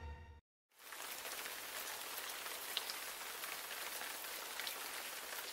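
Music cuts off, a moment of silence follows, and under a second in a steady sound of falling rain begins.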